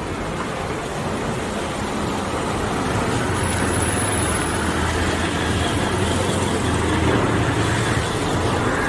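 Street traffic noise: vehicle engines running with a steady low hum. It grows a little louder about three seconds in.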